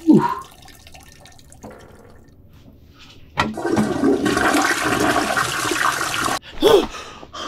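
A man's sigh, then a toilet flushing: rushing water for about three seconds that cuts off abruptly.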